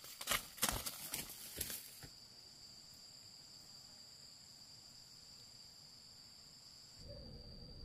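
Steady high-pitched drone of insects, with a burst of knocks and rustles in the first two seconds. A low rumble comes in near the end.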